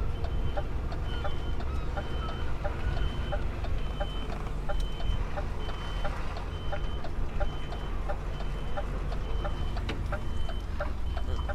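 Lorry reversing alarm sounding short high beeps about once a second as the truck backs up, over the low rumble of its diesel engine, with a faster regular ticking alongside.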